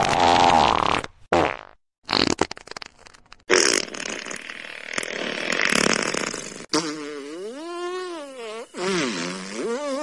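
A run of fart sounds, one after another: a long noisy blast, a short one, a stretch of short sputtering pops, and another long blast. In the last three seconds comes a squeaky, pitched fart whose pitch rises and falls.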